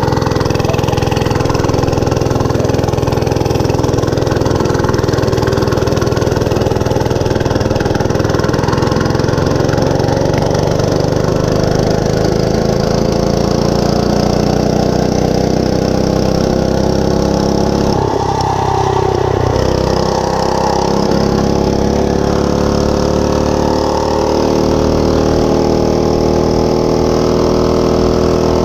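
Monster Moto 105 mini bike's single-cylinder four-stroke engine running steadily under throttle. Its pitch climbs slowly through the middle, wavers briefly, then holds steady.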